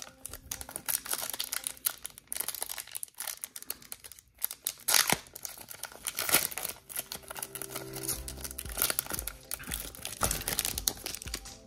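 Foil Pokémon trading card booster pack being crinkled and torn open by hand: a continuous run of sharp crackles and rips.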